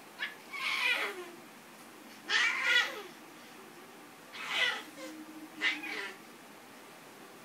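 A toddler's short, high-pitched vocal sounds, about four brief bursts a second or so apart, made while wrestling a plush giraffe.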